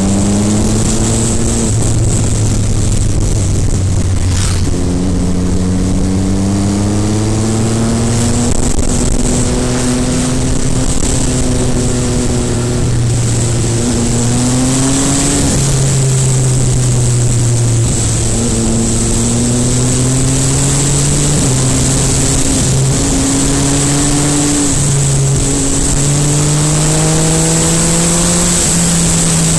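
MV Agusta Brutale 800RR's three-cylinder engine under way. Its pitch climbs and drops back several times with gear changes and throttle, over a steady hiss.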